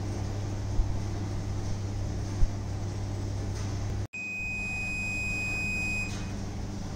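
Steady low machine hum with two short knocks. About four seconds in, a Dexter commercial washer's control panel sounds one steady high beep lasting about two seconds.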